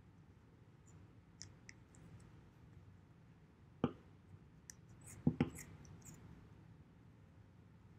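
Scissors cutting through thick knit sweater fabric: scattered faint clicks and snips of the blades, the loudest about four seconds in and a quick pair just after five seconds.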